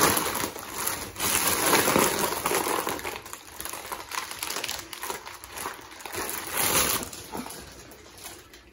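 Crinkling and rustling of a foil helium balloon squeezed in the hands while helium is drawn from its neck. It comes in surges, loudest over the first few seconds and again around seven seconds in, then dies away.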